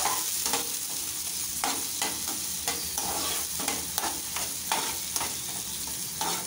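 Diced potatoes and tomatoes sizzling in oil in a steel frying pan while a metal spoon stirs them, scraping and clinking against the pan every half second or so.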